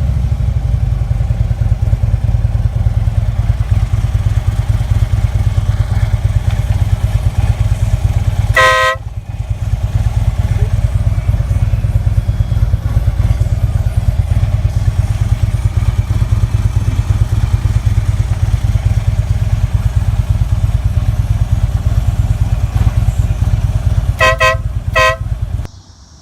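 Harley-Davidson Electra Glide's V-twin engine idling steadily, with a WOLO Bad Boy air horn sounding one short blast about nine seconds in and two quick blasts near the end. The engine stops just before the end.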